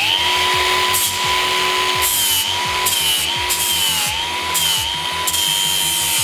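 Cordless angle grinder starting up and running, its whine dipping in pitch each time the disc bites into the edge of a thin aluminium sheet, with bursts of grinding hiss as it rounds off the sheet's corners.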